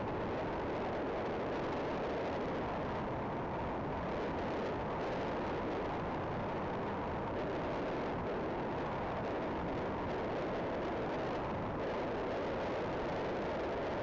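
Steady rush of wind and road noise from a motorcycle riding at speed: an even rushing sound with no distinct engine note.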